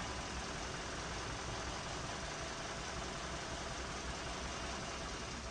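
2017 Hyundai Sonata's four-cylinder engine idling steadily with a stored misfire on cylinder 4, which the mechanic traces to a failed number-4 ignition coil.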